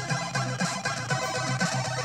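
Music with a steady beat playing from a cassette tape on a Sony CFD-5 boombox's tape deck, heard through its own speakers with little deep bass.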